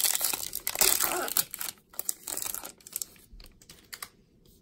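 Foil wrapper of a 2019 Topps baseball card pack being torn open and crinkled: a dense crackle for about the first second and a half, then scattered crackles and clicks that die away about four seconds in.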